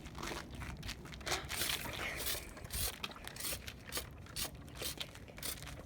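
Footsteps crunching and scuffing on dry ground, an irregular series of crunches as someone walks about.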